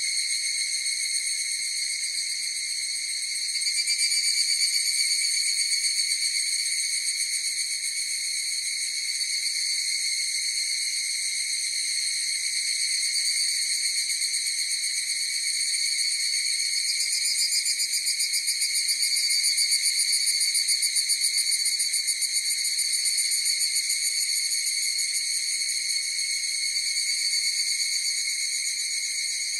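A chorus of higurashi (evening cicadas, Tanna japonensis) calling continuously in a high, fluttering trill, swelling louder about four seconds in and again past the middle.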